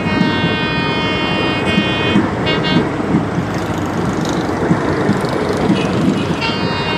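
Train running with a steady rumble while a horn sounds: a held blast that stops a couple of seconds in, a few short toots soon after, and another blast starting near the end.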